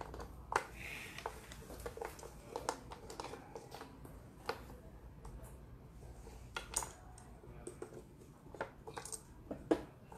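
Plastic Othello discs being flipped and set down on the board: a string of light, irregular clicks and taps.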